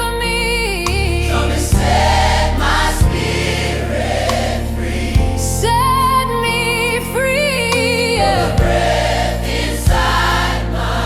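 AI-generated slow gospel worship song: a lead voice holds long notes with vibrato over a backing choir and a steady bass, with occasional drum hits.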